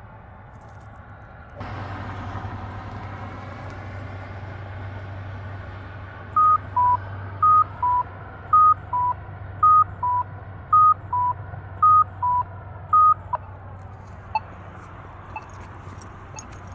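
Polara iNS accessible pedestrian signal sounding its two-tone "cuckoo" walk indication: six high-then-low pairs of short electronic tones, about half a second apart, over about seven seconds. After the cuckoo ends there are faint ticks about once a second, the button's locator tone. Passing traffic hums underneath.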